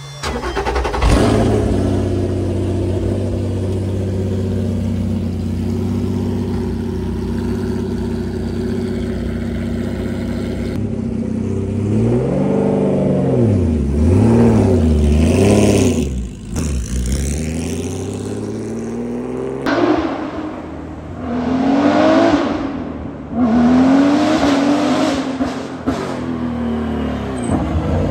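Porsche 911 GT3 race car's flat-six engine starting about a second in and idling steadily, then blipped several times with the revs rising and falling. Later the car pulls away, the revs climbing and dropping back several times as it accelerates through the gears.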